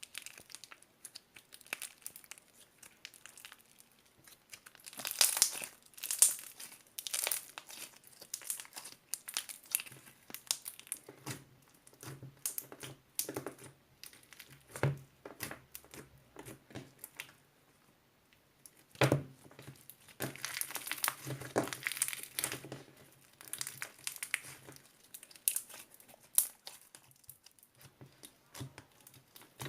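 Crinkly material such as paper or plastic being handled and crumpled close up, in irregular crackles and clicks with louder bursts. A faint low hum sits under it for a stretch in the middle.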